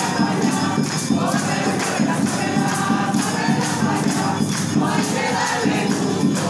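A group of voices singing a Venezuelan Christmas parranda, backed by a hand drum and a metal scraper that keep a steady, driving rhythm.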